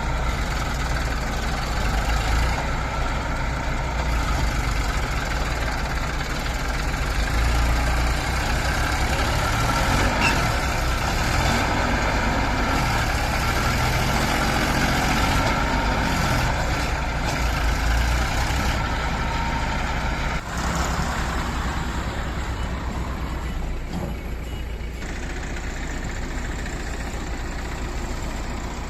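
Heavy diesel engine of earthmoving machinery running steadily at work, with a brief drop in level about two-thirds of the way through.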